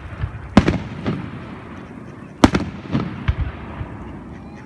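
Aerial fireworks shells bursting in a string of sharp bangs, about five in all, the loudest about halfway through, each trailing off in a short rumble.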